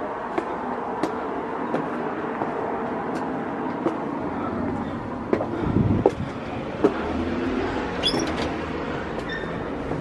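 Footsteps climbing steps, about one every two-thirds of a second, over a steady background rumble. A door is opened with a cluster of knocks and a clunk about six seconds in.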